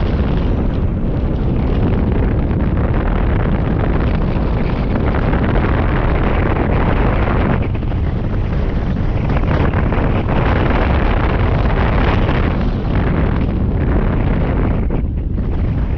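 Airflow buffeting the microphone of a camera mounted on a hang glider in flight: a loud, steady, low rumbling wind noise with small dips in strength.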